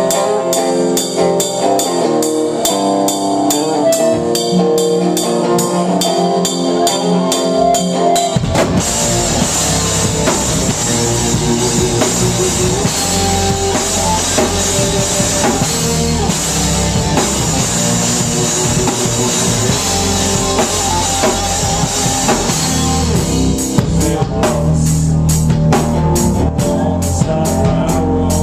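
A rock band playing live, heard from beside the drum kit. An electric guitar riff plays over a steady high ticking with no bass, then about eight seconds in the bass and full drum kit come in and the whole band plays loud.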